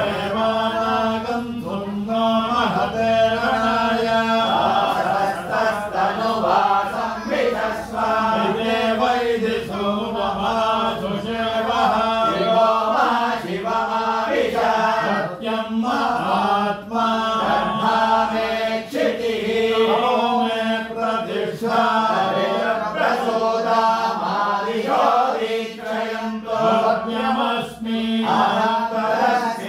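Vedic chanting (Veda ghosha): Sanskrit mantras recited on a steady, narrow range of pitch, with brief pauses between phrases.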